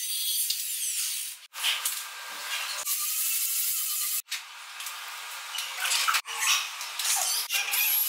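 High, hissy power-tool work sounds in several short segments, each cut off suddenly.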